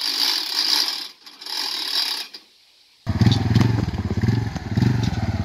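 A hand winch on a log-skidding arch being cranked, a steady high whirring hiss with a brief break. Then, about three seconds in after a short silence, an ATV's engine running, a loud rapid low putter.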